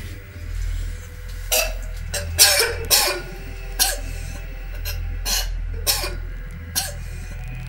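A young woman coughing and retching over and over, about eight short bursts roughly a second apart.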